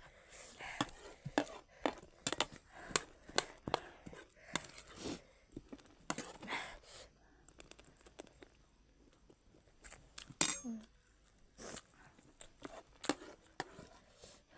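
A spoon clinking and scraping against a dish in quick, irregular clicks as food is scooped and eaten.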